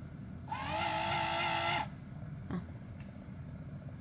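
Battery-powered touchless foaming soap dispenser's small pump motor running once for about a second and a half with a steady hum, triggered by a hand under the nozzle while the unit is being primed before any foam comes out. A faint tick follows about a second later.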